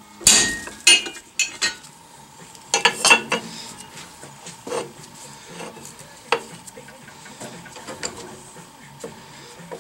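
A hammer striking a center punch into a steel control arm, the loudest blow a few tenths of a second in and another just under a second in. Then scattered metal clanks and knocks follow as the arm is handled and set in a drill-press vise.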